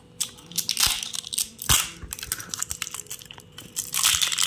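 Clear plastic shrink wrap crinkling and tearing in irregular crackles as it is cut open and pulled off a small plastic bottle of edible dust colour.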